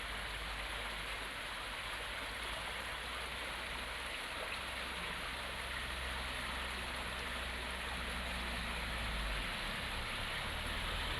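River water flowing in a steady rush, with a low rumble underneath.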